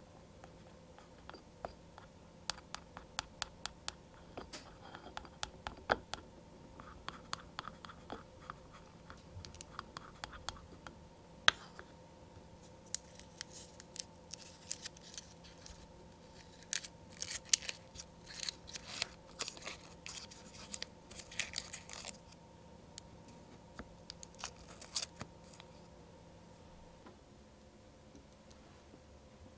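A tiny utensil stirring and scraping in a small ceramic bowl, mixing flour into egg, in quick light clicks and taps. About halfway through, the crackle and tearing of a wrapper being peeled off a small piece of butter, in dense bursts that die away near the end.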